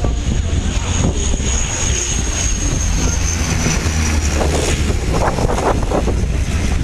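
Twin-engine turboprop airliner passing low overhead on its landing approach: a steady engine rumble with a high whine that slides slowly down in pitch as it goes by.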